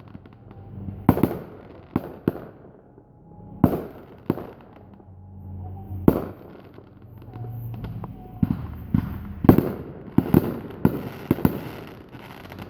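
Fireworks display: aerial shells bursting in sharp bangs at irregular intervals, coming faster in the second half.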